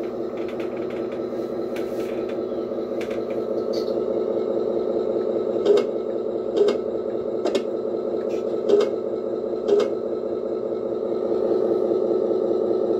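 The electronic engine-sound unit of a radio-controlled Scania 113 model truck plays a diesel idle through a small speaker as a steady, pulsing drone. Five sharp clicks about a second apart fall in the middle.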